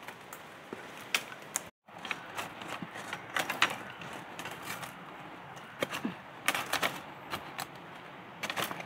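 Dry leaf litter and twigs crackling in scattered, irregular clusters of small clicks, the sound of someone moving and searching through the forest floor.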